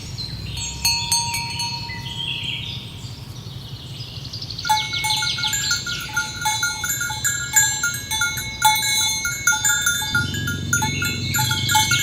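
Cowbells on the necks of walking cattle clanking in an uneven rhythm, starting about five seconds in and going on from there.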